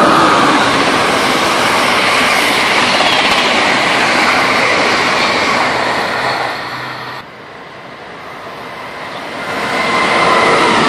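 Amtrak passenger train passing at speed, a steady rush of wheels on rail with a high whine over it. The sound cuts off sharply about seven seconds in, then a MARC commuter train's rush of wheels swells as it approaches and passes at speed near the end.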